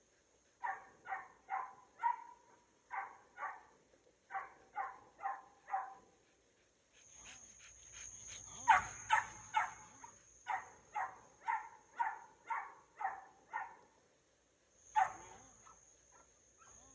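Puppy barking in quick runs of high-pitched yaps, about two a second, with short pauses between runs.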